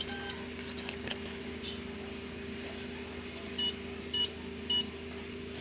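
Whirlpool dishwasher control panel beeping as its buttons are pressed: two beeps at the start, then three short beeps about half a second apart near the end, over a steady low hum.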